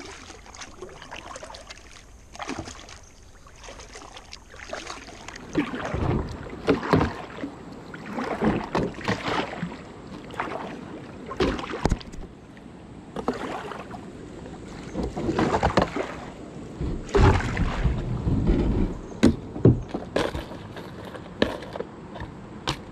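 Kayak paddle strokes: the blades dip and splash in the water again and again, every second or two, with a few sharp knocks near the end.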